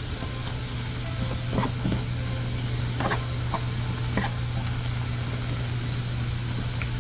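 Waffle iron steaming as cheesy keto waffle batter cooks, a steady hiss over a constant low hum, with a few faint clicks.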